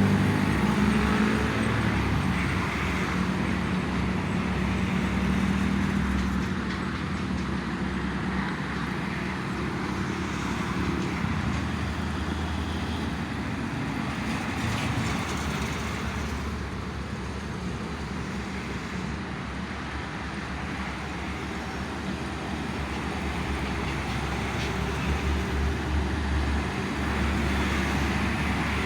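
Steady road traffic noise from vehicles passing on a toll road, a continuous rumble of engines and tyres that swells and eases slowly.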